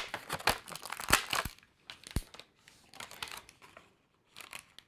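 Thin clear plastic figure tray crinkling and clicking in the hands as an action figure and its backpack are worked out of it: irregular crackles and sharp clicks, with a brief lull about four seconds in.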